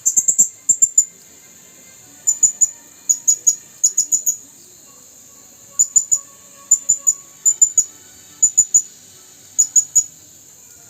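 Blue-crowned hanging parrot (serindit) calling: short, shrill, high-pitched chirps given in quick runs of three or four, about ten runs in all, with short pauses between them.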